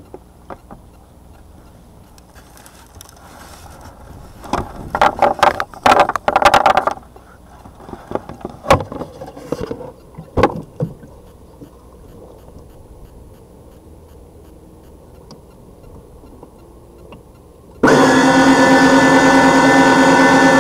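Scattered knocks and rattles from the bait boat being handled. About eighteen seconds in, the Jabo 2 bait boat's electric propeller motors start suddenly with a loud, steady whine, picked up from inside the bait hopper.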